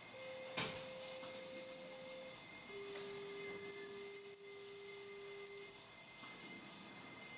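Electrosurgical unit's activation tone: a steady beep at one pitch for about two seconds, then a lower-pitched beep for about three seconds, with a sharp click about half a second in and a faint hiss.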